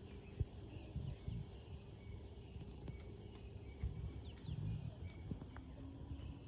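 Faint outdoor ambience: a low rumble with a few faint bird chirps and occasional light clicks.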